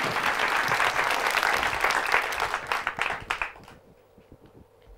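Studio audience applauding, the clapping dying away about three and a half seconds in.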